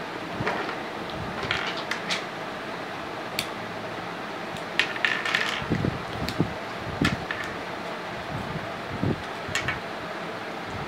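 Small plastic flower-shaped building blocks clicking and clattering as they are handled and pressed together, a few short sharp clicks with a quick cluster about halfway through, over a steady background hum.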